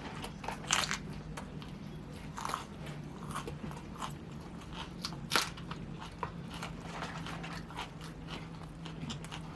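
Close-up chewing and biting of fast food: irregular crisp crunches and wet mouth clicks, with one louder crunch about five seconds in. A low steady hum runs underneath.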